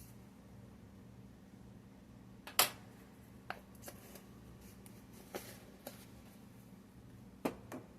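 A few light clicks and taps of kitchen items being handled while dry ingredients are measured out, the loudest about two and a half seconds in and the others scattered through, over a faint steady hum.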